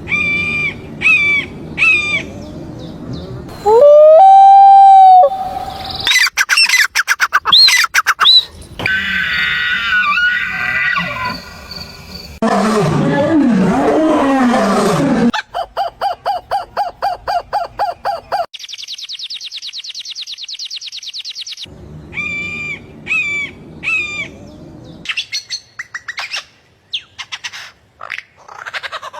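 A sequence of different animal calls, each lasting a few seconds and changing abruptly to the next. Short repeated bird-like chirps come at the start and again about two-thirds of the way through, with other calls between them: a held tone, rapid clicking, a low gliding call and a steady buzzing trill.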